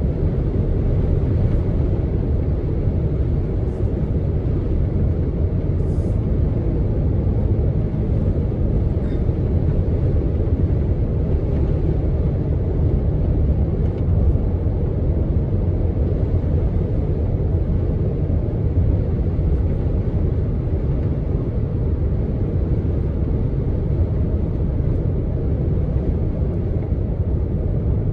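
Steady road noise of a car travelling at highway speed: a low, even rumble of tyres and engine that holds constant throughout.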